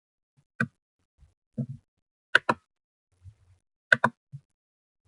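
Computer mouse clicks: a handful of short, sharp clicks, two of them in quick pairs, with quiet between.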